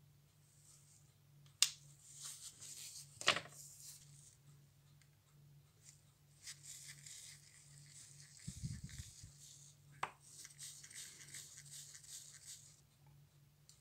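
Small sharp metal clicks, then several seconds of fine scraping as a watchmaker's screwdriver turns the screws of a 1930 Junghans watch movement, with a dull knock about halfway and another click soon after.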